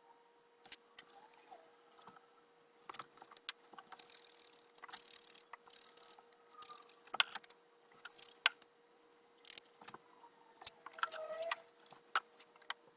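Scattered light clicks, taps and clatter from handling the small wooden drawers of a bandsaw box and the flocking tools, over a faint steady hum.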